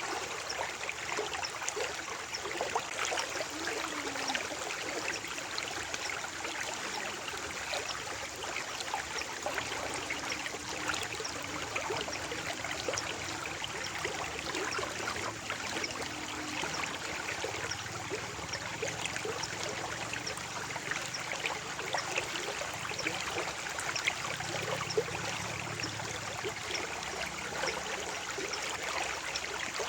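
Shallow stream flowing and trickling steadily, with many small splashes and gurgles.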